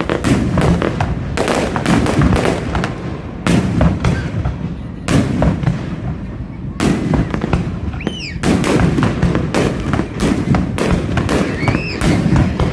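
Fireworks display: aerial shells bursting one after another, with crackling after the bangs. Whistling tones rise and fall about two-thirds of the way through and again near the end.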